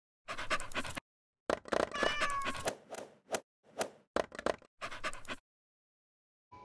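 A cat meowing in a string of short edited snippets, each cut off abruptly into silence, with one clear drawn-out meow about two seconds in.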